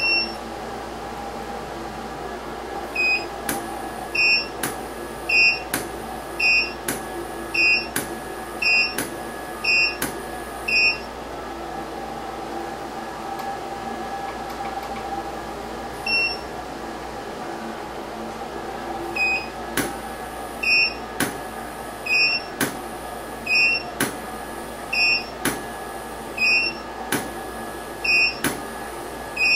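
Elinchrom BXRI 500 studio flash heads fired over and over, each sharp click paired with a short high beep, the flash's signal that it has recycled and is ready. The firings come about once a second in two runs, with a pause in between. A steady electrical hum runs underneath.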